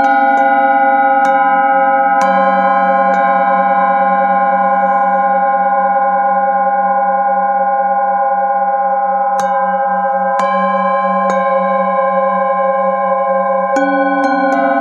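Singing bowls ringing with several overlapping steady tones, one bowl held in the hand and sung by a wooden mallet rubbed around its rim, its low tone wavering. A few light strikes on other bowls add fresh tones, with a stronger strike near the end.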